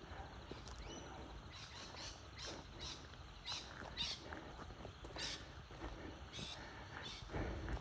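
Birds calling in the bush: a scattered run of short, harsh, scratchy calls over a steady low rumble.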